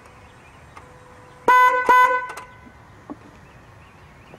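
Newly installed aftermarket disc-type electric car horn sounding two short, loud honks close together at a steady pitch, testing that the new horn is wired up and working.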